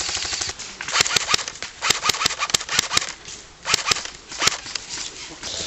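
Airsoft guns firing: a rapid run of shots at the start, then sharp single cracks and short clusters of shots scattered through the rest.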